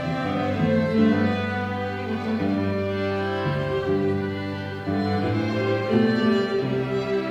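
Live string ensemble playing a slow piece: a violin over lower bowed strings, in long held notes that change every second or so.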